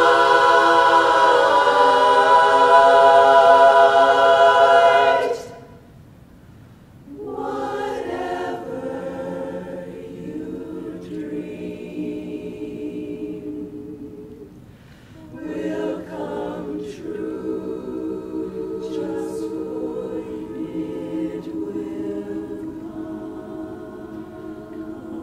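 Women's barbershop chorus singing a cappella in close harmony. A loud held chord cuts off about five seconds in; after a short pause the chorus comes back in more softly, with another brief breath near the middle.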